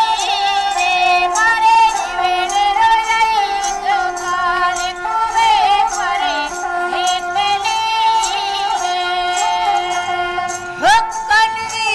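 Music: an ornamented, wavering melody over a steady held drone, with frequent light percussive taps.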